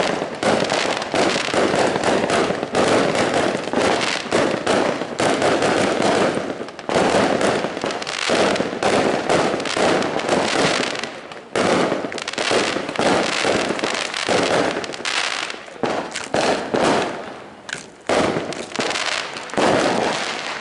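Aerial fireworks going off in rapid succession: a dense barrage of bangs and crackling with only brief lulls, one about halfway through and one near the end.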